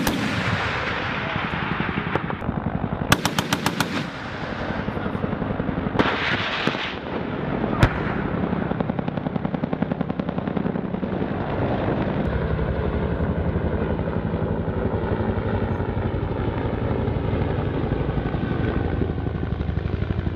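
AH-1Z Viper's M197 20mm three-barrel cannon firing short rapid bursts: one right at the start, and a second of about ten rounds about three seconds in. A short rushing sound follows around six seconds in and a single sharp crack near eight seconds. Under it all the helicopter's rotor and turbines run steadily with an even pulse.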